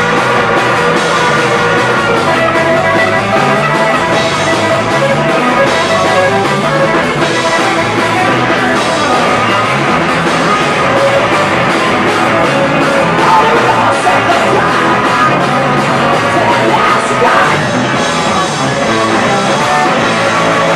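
Live rock band playing, with two semi-hollow-body electric guitars and a drum kit, loud and continuous.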